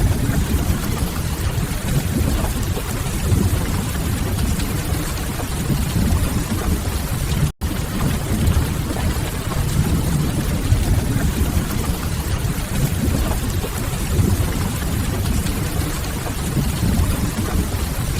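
Steady rain ambience: a dense hiss with a heavy low rumble underneath. The sound cuts out for an instant about seven and a half seconds in, then carries on unchanged.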